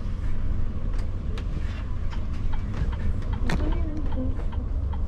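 Coach engine running with a steady low rumble, with scattered light clicks and a brief voice-like sound about three and a half seconds in.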